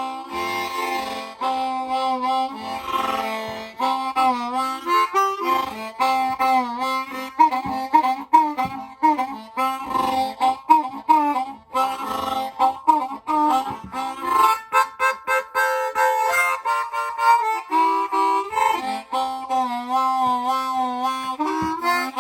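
Harmonica playing a blues tune, with bent notes and quick runs of repeated notes.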